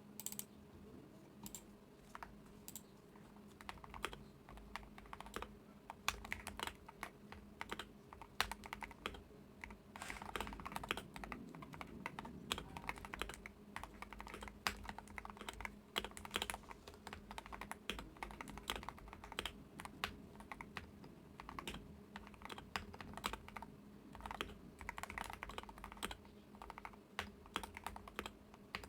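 Continuous typing on a Wooting 60HE keyboard with lubed Hall-effect magnetic switches: an irregular stream of keystrokes, with faster flurries about ten seconds in and again later on.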